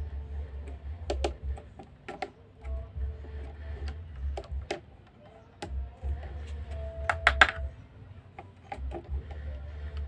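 Irregular small clicks and taps as a plastic two-gang wall switch and a screwdriver tester are handled and touched against its terminals, with a louder cluster of clicks about seven seconds in, over an intermittent low rumble.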